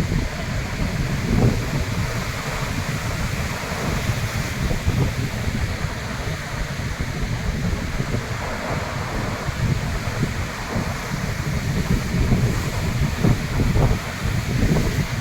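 Sea surf breaking and washing onto the shore in slow swells, with wind buffeting the microphone as a low, fluttering rumble.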